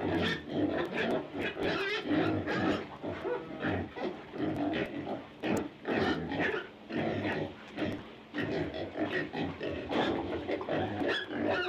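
A pig grunting and oinking in a quick, irregular string of short calls.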